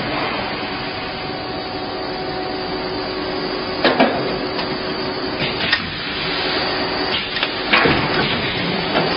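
High-speed plastic bottle blow molding machine running: a steady mechanical whir and hiss, broken by a few sharp clacks spaced about two seconds apart as the machine cycles.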